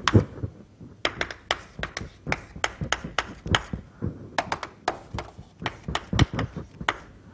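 Chalk writing on a chalkboard: a run of quick, irregular taps as the strokes are made.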